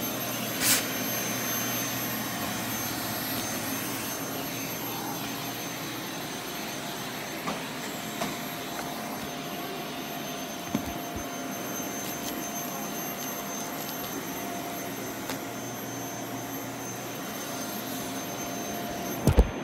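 Vacuum cleaner running steadily over carpet with a high, steady whine. A few sharp knocks, two close together near the end.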